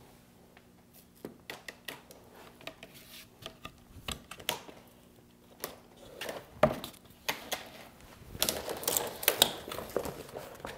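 Vinyl vacuum bag crinkling, with scattered clicks, as a glued veneered panel is slid into it. From about eight and a half seconds the rustling turns dense and scratchy: the breather mesh catching on the corner of the veneer, a sound called awful.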